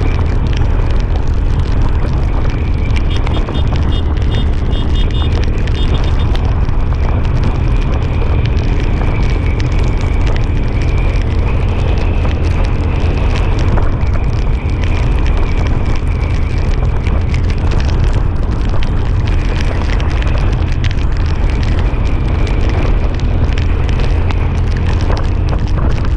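Motorcycle ride at speed: steady, loud wind buffeting on the microphone over engine and road noise. A brief run of faint high beeps a few seconds in.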